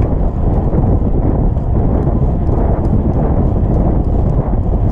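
Hoofbeats of racehorses galloping, a quick irregular patter over a steady low rumble.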